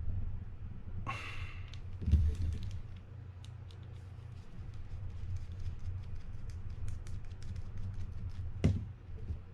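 Small metal reel parts and a small screwdriver being handled and worked while a line roller screw is undone: many light ticks and taps, a short squeal about a second in, and two louder knocks, near two seconds and near the end, over a steady low hum.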